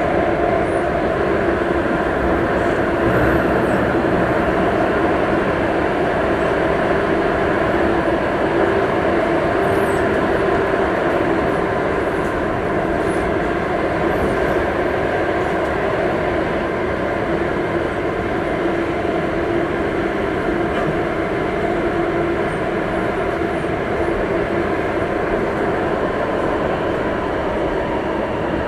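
Singapore MRT train running at steady speed, heard from inside the carriage: an even rumble of wheels on the track with a faint steady hum.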